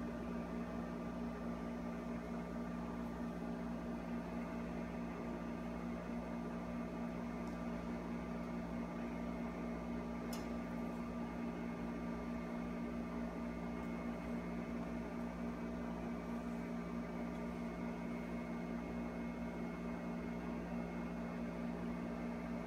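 Steady electrical hum: a low tone with fainter higher tones above it, unchanging throughout. A single faint click comes about ten seconds in.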